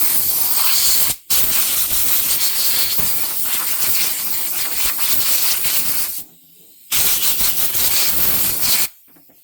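Compressed air hissing from an air compressor's blow gun in three blasts: a short one, a long one of about five seconds, and one of about two seconds, each cut off sharply. The air is blowing dry grass and dirt off an electric RC buggy.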